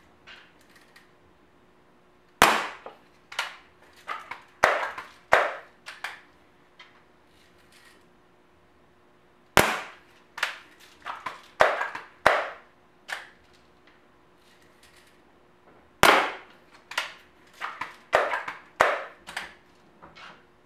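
Daisy Powerline 901 multi-pump pneumatic air rifle being shot and worked over and over: three sharp cracks about seven seconds apart, each followed by a quick run of lighter clicks and clacks from cycling the bolt and pump lever.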